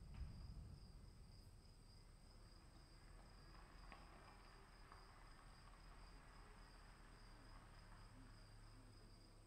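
Very faint outdoor ambience: a steady high chirring of crickets over a faint low rumble that is a little louder at the very start.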